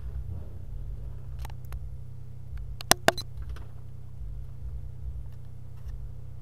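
Low steady hum of a stationary car idling, heard inside the cabin, with two sharp clicks close together about three seconds in.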